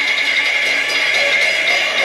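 Peking opera accompaniment under stage movement: quick, evenly spaced percussion strikes over a steady high ringing tone.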